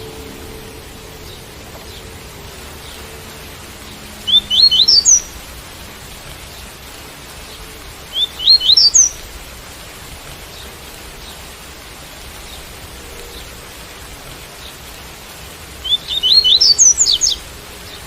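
Double-collared seedeater (coleiro) singing its tui-tui song: three short phrases of quick rising notes, about four seconds in, about eight seconds in and near the end, over a steady hiss of rain.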